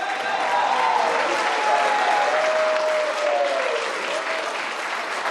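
A crowd clapping steadily, with voices calling and cheering over the applause during the first few seconds.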